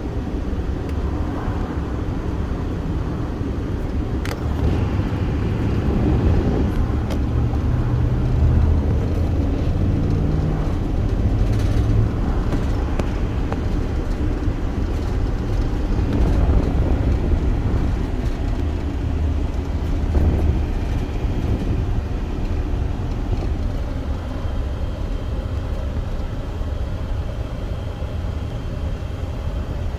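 Car driving: a steady low rumble of road and engine noise that swells a little in the middle and eases off toward the end.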